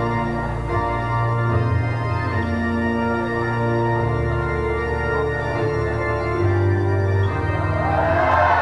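Music from the sound system with long held organ-like chords over a slow-moving bass line, the notes changing every second or two. Near the end, audience voices rise over the music.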